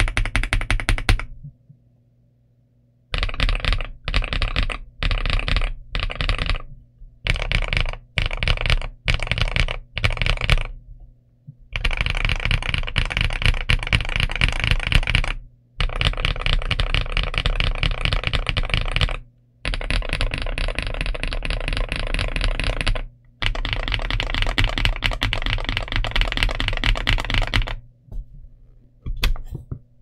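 Typing on a Boyi K104 Pro mechanical keyboard with Boyi Jadeite Green POM switches and dye-sub PBT Cherry-profile keycaps. It comes first in short bursts of keystrokes, then in long runs of fast continuous typing, and stops a couple of seconds before the end.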